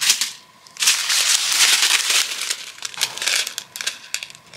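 Small plastic bags of diamond-painting gems crinkling and rattling as they are handled, with a few light clicks.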